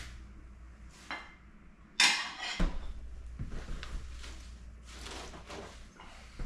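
Cooking sounds at a stockpot: a short loud rush about two seconds in as chopped onions and spices are tipped in from a plate, a clink on the pot right after, then soft rustling and small knocks as collard greens are pushed down into the pot.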